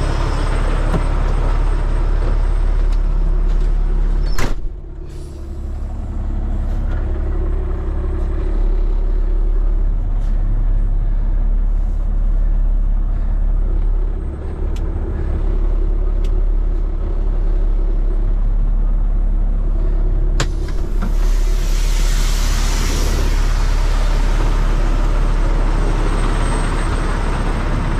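Peterbilt 389X heavy rotator wrecker's diesel engine idling steadily. A door shuts with a sharp click about four seconds in and the engine sounds muffled, as heard from inside the cab; a second click near twenty seconds in is followed by a few seconds of hiss.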